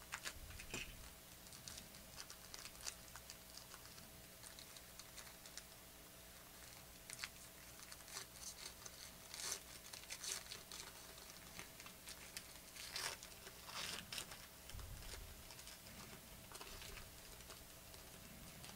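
Faint, irregular crinkling and small clicks of a foil trading-card pack being torn open and the cards inside being handled.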